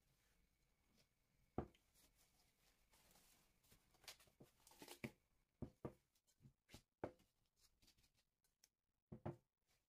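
Faint kitchen handling sounds: a stretch of plastic cling film crinkling over a glass bowl of dough, and scattered soft knocks and taps of the bowl and dough against a silicone mat.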